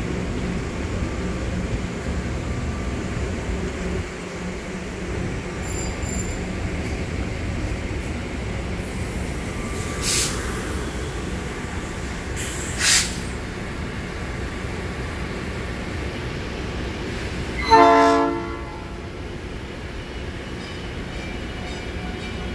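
Electric passenger train standing at the platform with a steady low rumble, two brief hisses about ten and thirteen seconds in, and a loud horn blast of about a second near the end, the loudest sound.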